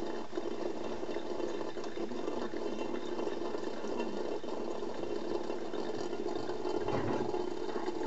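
A thin stream of water from a kitchen mixer tap running steadily into a stainless steel sink and splashing onto the drain basket. A soft low bump sounds about seven seconds in.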